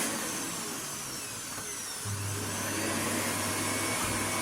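Vacuum cleaner motor cutting out as its cord is pulled, then running again about two seconds later: an intermittent power connection in the cord-rewind reel, where the brass brushes that run on its brass rings lose contact.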